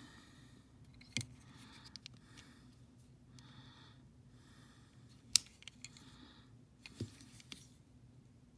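Small clicks and taps of a die-cast toy car being handled and turned in the fingers, a few sharp clicks standing out, the loudest about five seconds in.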